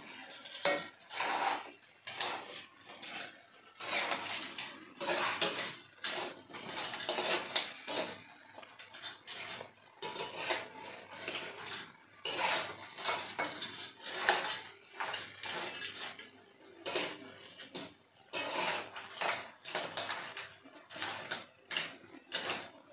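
A spatula scraping and knocking against a wok while small crabs are stir-fried, in many irregular strokes, some louder than others.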